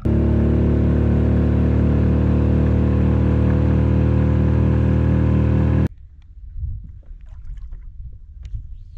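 Boat motor running at a steady speed, moving into the estuary, loud and even for about six seconds, then cut off abruptly; faint knocks and rustling follow.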